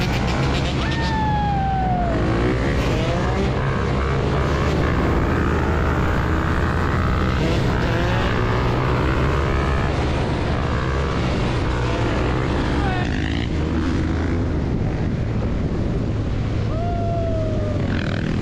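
Several motorcycle engines running together with a steady low drone, with revs dropping in pitch near the start and again near the end.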